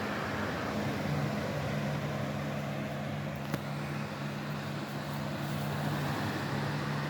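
MAXX pedicure dust-extractor vacuum running, a steady fan-motor whir with a low hum. A single sharp click comes about halfway through.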